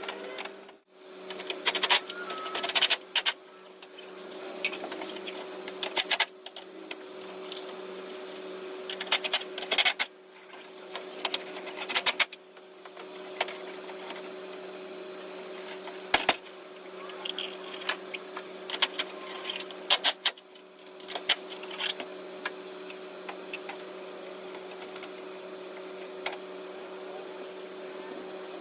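Irregular clicks, knocks and rattles of nuts and hand tools being worked onto the studs of a plastic truck grille and the grille being pressed into place, over a steady hum.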